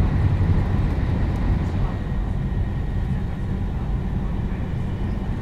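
Shinkansen train running at speed, heard from inside the passenger car: a steady low rumble and rush of running noise with faint high whining tones above it.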